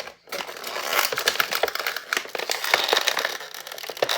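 Plastic toy packaging crinkling and crackling as it is handled and pulled apart, a dense run of small clicks and rustles.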